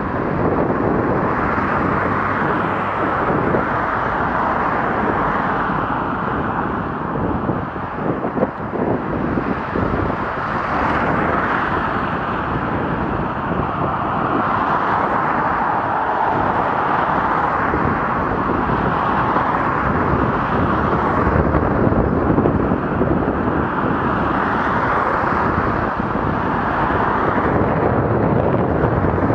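Wind rushing over the microphone while riding a bicycle along a road, mixed with road and traffic noise that swells and eases every few seconds.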